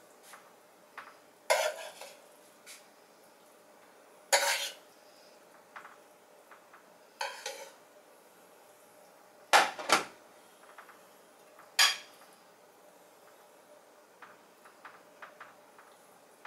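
A spoon knocking and scraping against a metal frying pan as a spinach mixture is spooned out, in separate sharp clinks that ring briefly, a few seconds apart, with two in quick succession about halfway through and fainter small taps between.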